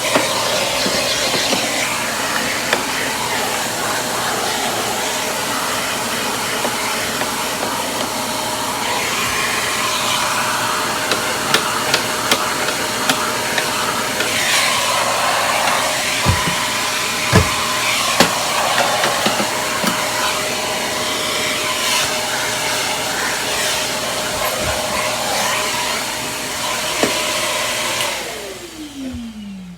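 Riccar vacuum cleaner running steadily as it picks up debris, with a few sharp knocks partway through. Near the end it is switched off and the motor winds down with a falling whine.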